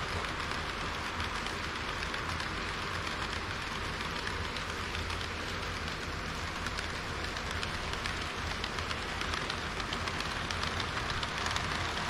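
HO-scale model trains, an EH200 locomotive with tank cars and a KiHa 40 railcar, rolling on the track with a steady hiss-like rattle of wheels on rails. It grows a little louder near the end as the railcar passes close.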